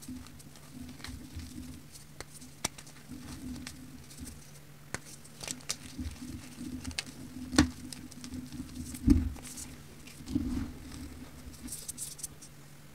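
Crunchy pressed powder bars crumbled and rubbed between fingers: scattered crackles and a fine patter of grit and powder falling into the pile, with two louder crunches a little past the middle. A steady low hum runs underneath.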